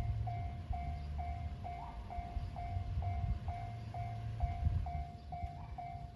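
Railway level crossing warning bell ringing in an even, repeating beat of about two strikes a second, over a low rumble.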